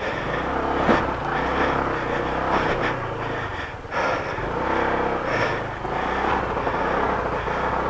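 Honda ADV adventure scooter's engine running under uneven throttle as it crawls over loose rocks, with knocks and rattles from the tyres and bodywork. There is a sharp knock about a second in, and a brief lull just before four seconds as the throttle eases off and then comes back on.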